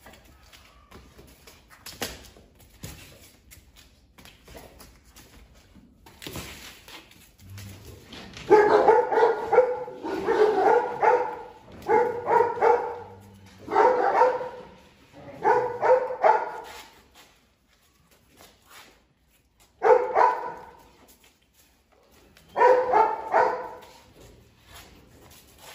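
Presa Canario giving clusters of short, high, yelping barks while jumping for a raw chicken frame held up out of reach. The barks begin about eight seconds in and come in bursts with pauses. A few knocks come earlier.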